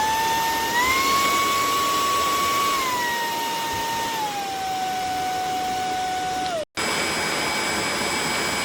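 Hoover ONEPWR WindTunnel Emerge cordless stick vacuum running, a steady motor whine over a rush of air. The pitch steps up about a second in and then steps down twice. The sound breaks off for an instant about two-thirds of the way through, then runs on at a steady pitch.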